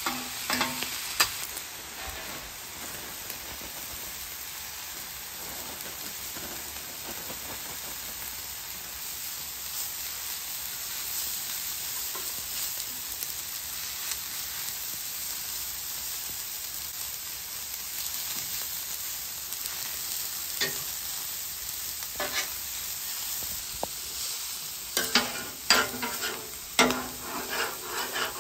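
Shredded cabbage and meat sizzling steadily on a hot Weber Slate flat-top griddle, with metal spatulas scraping and clicking on the griddle plate: a few strokes just after the start, a few more past the middle, and a quick run of them near the end as the cabbage is tossed and spread.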